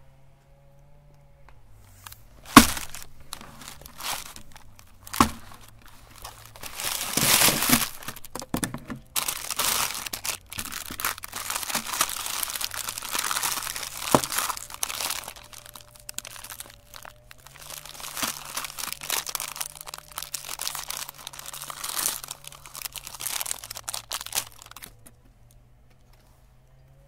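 Plastic ice cream bar wrappers crinkling and tearing as chocolate-coated ice cream bars are handled and unwrapped by hand. Two sharp knocks come about three and five seconds in; the first is the loudest sound.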